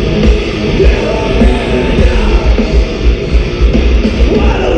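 Loud live heavy rock music in a concert hall, heard from among the crowd: distorted guitars over a steady, heavy drum beat.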